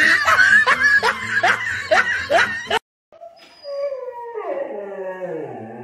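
A music track with quick rising squeaky notes cuts off about halfway. Then a Siberian husky gives one long howl, about two seconds, that falls in pitch.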